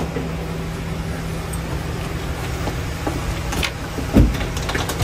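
A car engine idling with a steady low hum. Two dull thumps about four seconds in and at the very end.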